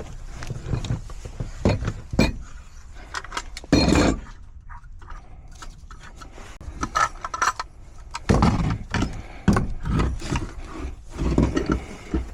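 Wrench and tools clanking and scraping on metal as a tight gas valve is worked loose from its threaded gas pipe, in irregular strokes with the loudest bursts about four seconds in and again in the last third.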